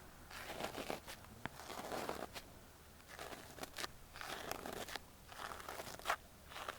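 Close-up ear cleaning into the microphone: a tool scraping and rustling in the ear, making irregular crunchy, crackly scratches with a few sharper clicks.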